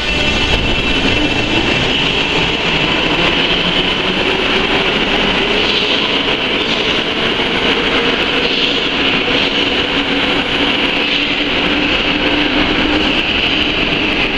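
Metro train pulling out of the station and accelerating away: a steady loud rumble of wheels on rail with a whine that rises in pitch as it gathers speed.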